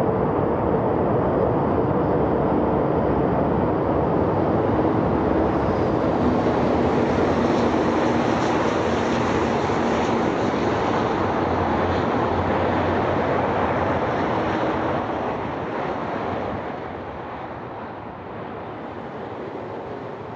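Airbus A380-861's Engine Alliance GP7200 jet engines, a loud steady roar that dies away over the last few seconds.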